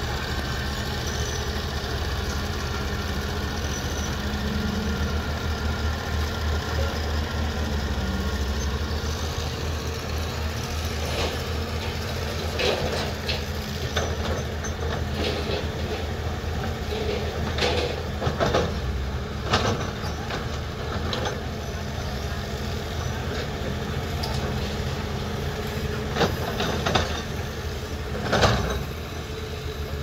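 Heavy construction machinery's diesel engines running steadily, with several sharp knocks and clanks in the second half, the loudest near the end.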